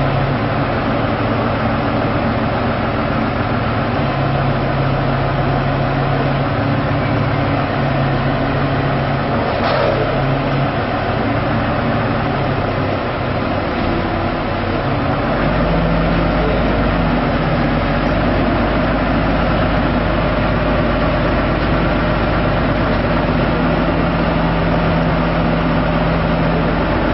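A motor vehicle engine running steadily amid road-traffic noise. Its low note steps up slightly about halfway through, and there is a brief click about ten seconds in.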